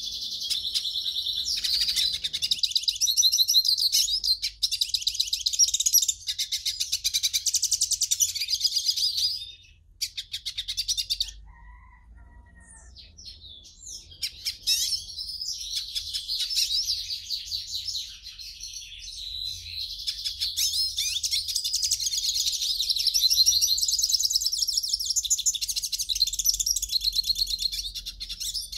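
A pintassilgo finch singing a long, rapid, high-pitched twittering song. It stops for about two seconds around ten seconds in, gives a few softer notes, and then starts singing again.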